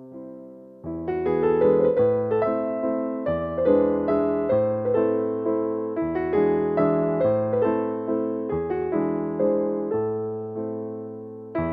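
Background piano music: a steady run of gently struck keyboard notes, each fading away, with a brief lull before the notes pick up again about a second in.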